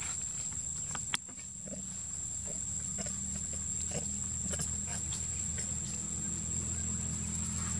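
Long-tailed macaques making short, scattered calls over a steady high-pitched insect whine and a low hum that grows slowly louder.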